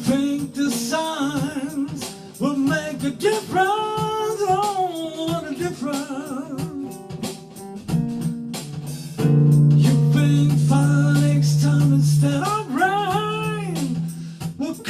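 Soul song: a voice singing held, wavering notes over guitar chords.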